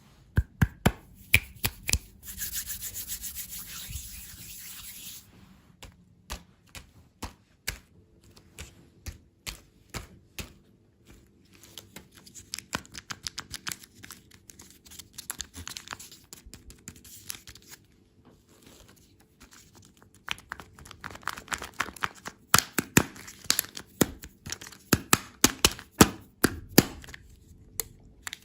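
Candy packaging being handled and opened up close: rubbing and scratching with many sharp clicks and taps. A steady hiss lasts about three seconds near the start, and a dense run of rapid clicks comes near the end.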